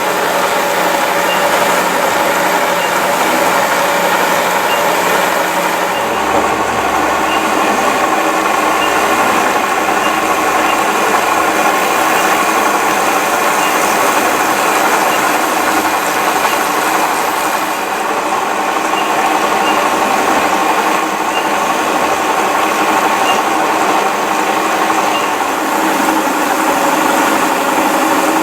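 XYZ Pro 3000 CNC turret mill running, a steady machine hum with several steady tones, with no change in pace.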